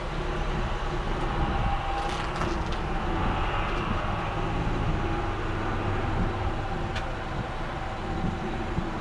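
A car running, heard from inside the cabin as a steady low hum and engine noise, with a couple of faint clicks.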